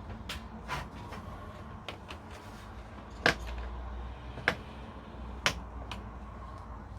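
A few light, sharp clicks and taps, about six spread over several seconds, from small tools being handled against a circuit board, over a faint low hum.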